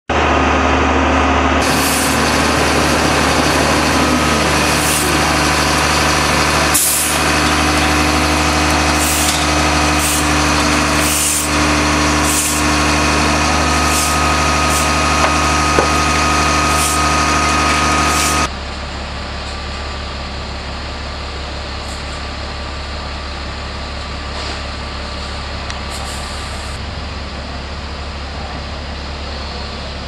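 Heavy grapple truck's engine running steadily, with short hisses every second or two. After about 18 seconds the sound drops suddenly to a quieter steady rumble.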